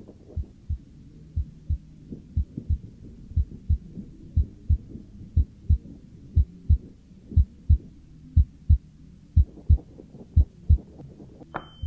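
Slow heartbeat sound effect: pairs of low thumps, lub-dub, about once a second, over faint high ticking. Near the end a sudden high tone starts and holds steady.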